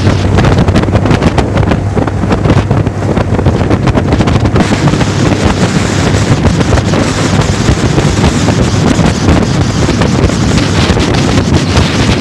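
Wind buffeting the microphone over the steady drone of a 25 hp outboard motor pushing a jon boat along at speed.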